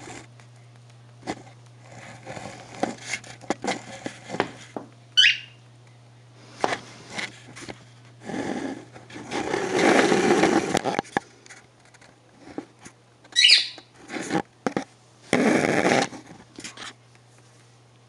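Small bird's claws tapping and scraping on a tiled floor, with two short chirps falling sharply in pitch, one about five seconds in and one near thirteen seconds. Two longer bursts of rustling come in the middle and near the end.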